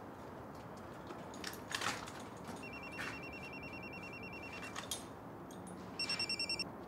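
A telephone ringing with an electronic trill: one ring of about two seconds, then a second, shorter ring near the end. A few faint clicks come before the first ring.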